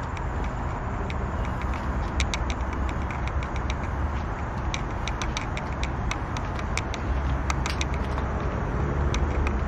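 A round rubber-bristled cat brush stroking a cat's back, heard as many small dry clicks and rustles, over a steady low background rumble.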